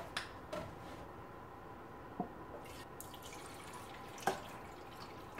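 Milk poured from a can into a frying pan, a faint steady trickle with two light clicks, about two and four seconds in.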